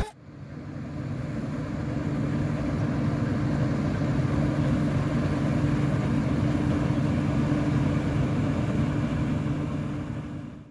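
Claas Dominator combine harvester's diesel engine and threshing gear running steadily as it harvests, a constant low drone with a steady hum. It fades in at the start and fades out near the end.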